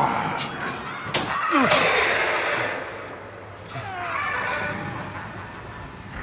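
Cinematic trailer sound effects: two sharp crashing impacts a little over a second in, with a cry that falls steeply in pitch. A quieter stretch follows, with another short falling cry near four seconds.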